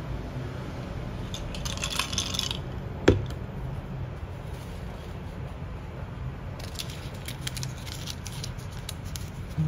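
A glass of iced coffee is set down on a wooden tray: light clinking from the glass, then one sharp knock about three seconds in. From about six and a half seconds in, a paper cupcake liner crinkles as a cream puff is lifted.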